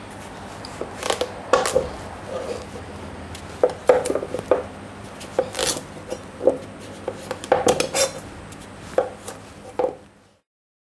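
I.O.Shen chef's knife cutting through raw pumpkin and knocking on a plastic chopping board: a run of irregular sharp taps and clicks that cuts off suddenly near the end.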